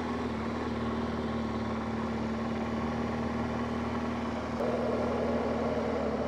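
BMW motorcycle engine running steadily with an unchanging pitch, growing a little louder about four and a half seconds in.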